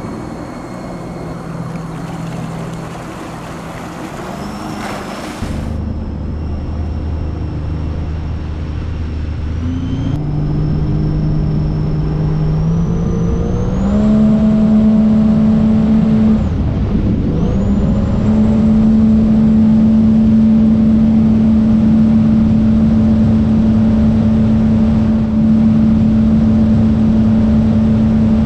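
Supercharged Sea-Doo RXP-X personal watercraft engine, heard from on board, accelerating hard. Its pitch climbs in steps to a high, steady full-throttle pitch with a thin high whine over it, dips once briefly and picks back up, and holds there with rushing wind and water.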